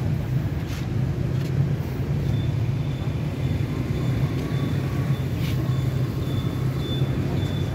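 Steady low rumble of road traffic, with a faint, thin high tone in the second half.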